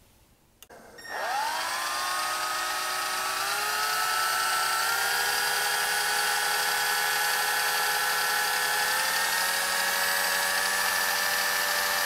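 Small electric drill motor starting about a second in and spinning up, its whine rising quickly, then creeping a little higher and running steadily. It is turning the core to wrap fine 36-gauge nichrome wire around it.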